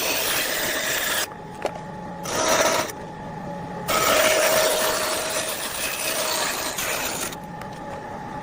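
Power tool cutting wood, running in stretches broken by short quieter pauses, with a steady whine under the cutting noise.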